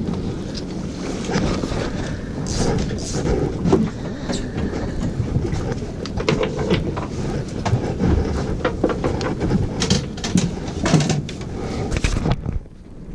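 Wind rumbling on the microphone and water around a small boat at sea, with scattered short clicks and knocks of fishing gear being handled.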